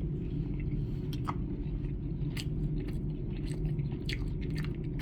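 A person eating mac and cheese, chewing with scattered short wet mouth clicks and smacks over a steady low hum.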